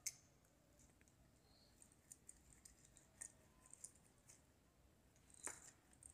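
Near silence with a few faint, scattered clicks, the loudest about five and a half seconds in: a small screwdriver working the terminal screw of a plastic bulb holder as a wire is fastened under it.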